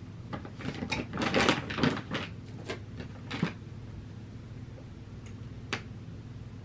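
Cat eating dry kibble from a glass bowl: a quick run of crisp crunches in the first three and a half seconds, then a single click near the end.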